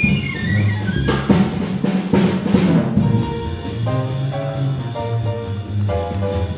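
Large cool-jazz ensemble playing live. A busy drum fill with a falling run of notes over it for about the first three seconds, then the horns come in together in a moving line over bass and drums.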